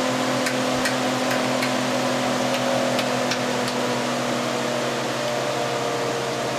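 Induction motor and eight-coil generator running with a steady hum of several tones, while about eight sharp clicks come in the first four seconds as the generator coil leads are unclipped and disconnected at the terminal panel.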